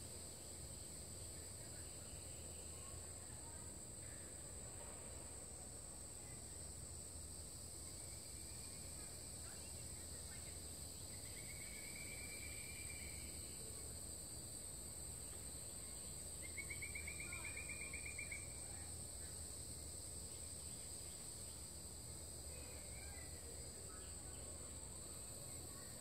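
Faint steady high-pitched insect chorus, with two short rapid trills about twelve and seventeen seconds in, the second the louder.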